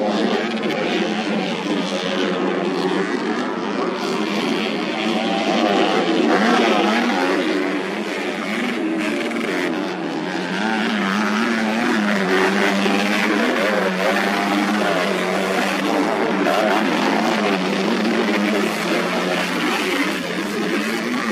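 Several modified underbone motorcycles racing on a dirt grasstrack, their engines revving with pitch climbing and falling as they accelerate and back off.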